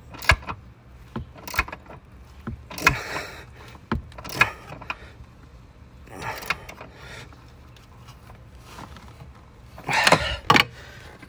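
Hand wrench tightening a rear strut's top-mount nuts: scattered metallic clicks and knocks of the tool on the nuts and surrounding metal, with a short clatter about ten seconds in.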